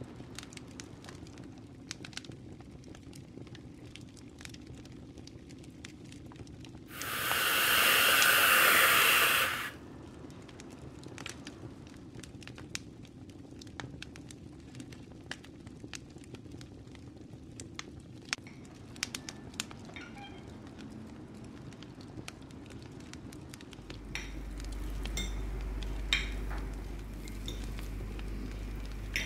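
Small scattered clinks and taps of a spoon against a ceramic cup, with a loud steady hiss lasting about two and a half seconds about seven seconds in. A low hum comes in near the end.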